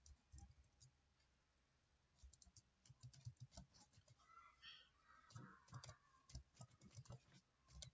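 Faint, irregular clicking of typing on a computer keyboard, starting about two seconds in.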